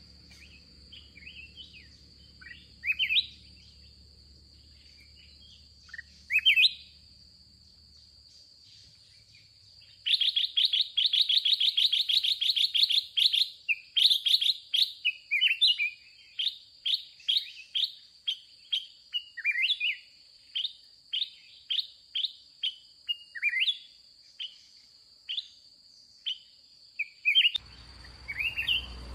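Black-crested bulbuls calling: scattered chirps at first, then a fast chattering run of notes lasting a few seconds, then sharp chirps repeated about once or twice a second. Behind them runs a steady high-pitched insect drone, and a low rumbling noise comes in near the end.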